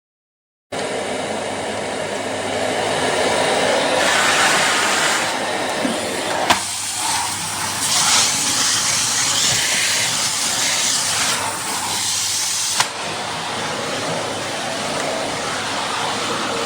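A Philips Series 3000 Performer Compact 900 W bagged vacuum cleaner running: a steady motor hum and rushing airflow that starts abruptly, turns thinner and hissier about halfway through, with a couple of short clicks.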